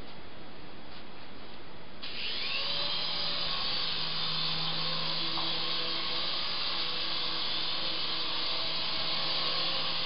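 Syma S109 mini remote-control Apache helicopter's electric motors and rotors spinning up about two seconds in, the pitch rising briefly, then running with a steady whirring whine and rotor hiss.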